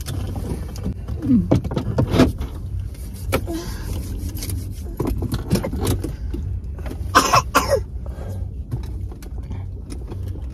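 Steady low rumble of a car, heard from inside the cabin, with scattered short knocks and rustles of people moving in their seats; a cluster of louder knocks comes about seven seconds in.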